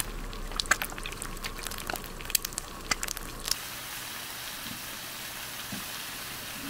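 Eggs frying on a round griddle pan, sizzling with many sharp crackling pops. About three and a half seconds in, the sound gives way to the steadier, even sizzle of bacon strips frying.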